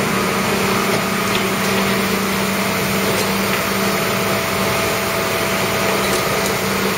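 Tow truck's engine idling steadily: a constant, unbroken hum with a low steady tone.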